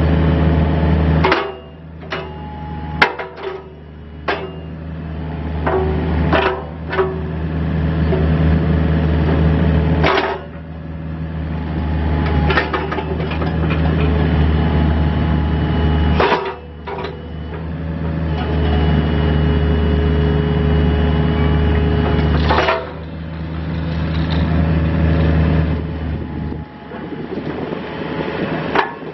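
John Deere 50D mini excavator's diesel engine running steadily while the boom, arm, bucket and hydraulic thumb are worked, with a hydraulic whine that comes and goes. Sharp metallic clanks from the arm and bucket linkage come about eight times.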